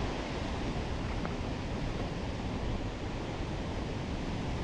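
Steady roar of Skógafoss waterfall: a broad, even rush of falling water with a flickering low rumble.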